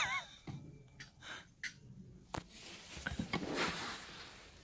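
Faint handling noise: rustling with a few light taps and knocks on a wooden floor, and a longer rustle about three seconds in.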